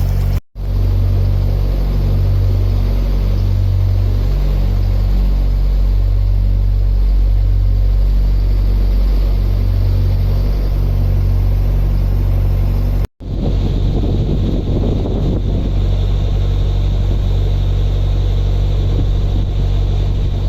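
Narrowboat's diesel engine running steadily while cruising, a low, even drone that breaks off sharply twice at edit cuts, with more wind or water noise in the last stretch.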